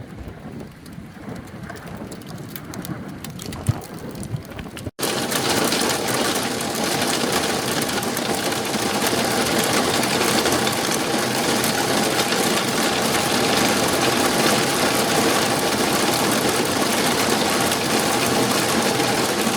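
Hailstorm: for the first five seconds, scattered sharp ticks of hailstones over a lighter wash of rain. After a cut, a loud, steady, dense clatter of hail and heavy rain pelting down.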